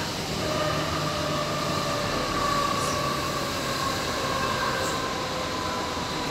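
DT3-E metro train running, heard from the driver's cab: steady wheel-on-rail rumble under an electric whine whose pitch drifts slowly down as the train slows into a station.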